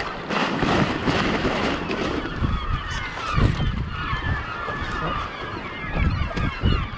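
Many short calls from a flock of birds, thickening from about two seconds in, over steady wind noise, with a few low thumps.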